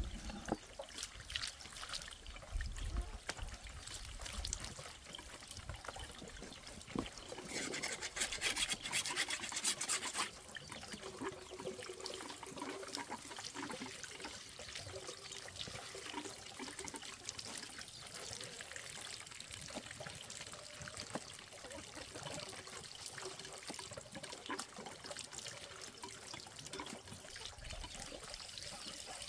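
Water trickling steadily, with scattered small clicks and a louder two-second rush of water about eight seconds in.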